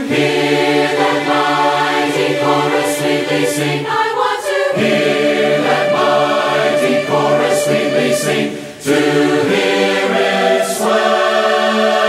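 Background music: a choir singing a slow hymn in long held chords, with a short breath between phrases about three-quarters of the way through.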